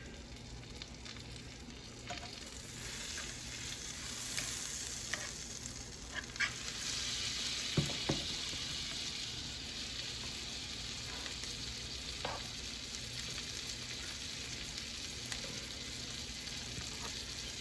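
Melted butter and beef drippings sizzling steadily in an electric skillet, the sizzle growing a little louder about six seconds in. A couple of light clicks come about eight seconds in as the skillet's temperature knob is turned.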